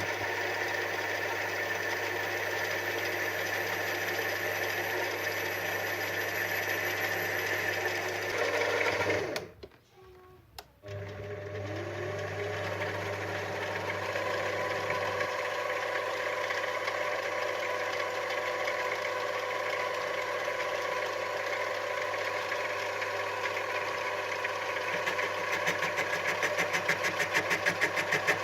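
Lathe running steadily while turning an aluminium workpiece. About nine seconds in the machine is switched off and falls quiet for a couple of seconds, then is started again and spins back up. Toward the end a fast, even ticking grows louder.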